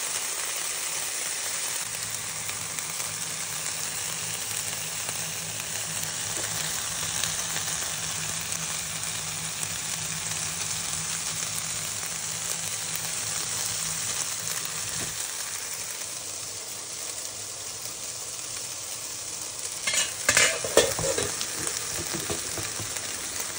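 Diced chicken breast sizzling steadily in oil in a frying pan on reduced heat, with freshly chopped herbs and garlic added. About twenty seconds in, a short run of scrapes and knocks from a wooden spatula stirring the pan.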